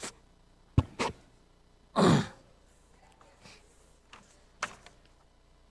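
Two sharp knocks, typical of a microphone being handled, then a loud breath out close to the microphone about two seconds in, over otherwise quiet room sound.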